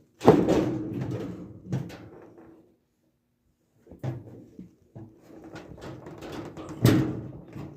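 Clunks and knocks from a clothes dryer's metal panels being handled and fitted back into place, with a sharp bang right at the start and another about seven seconds in. The sound drops out completely for about a second in the middle.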